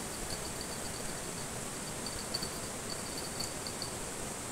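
Insects chirping in quick pulsed trills over a steady rush of flowing river water.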